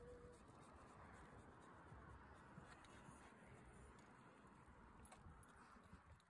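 Near silence: faint outdoor background noise with a few soft, scattered clicks.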